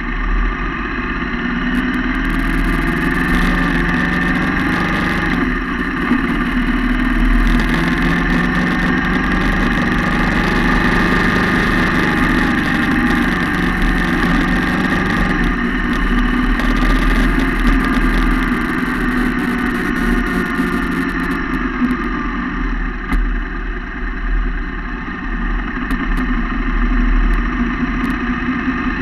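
Yamaha MT-07's parallel-twin engine running loud through twin exhaust cans, heard close up beside the engine, its revs slowly rising and falling.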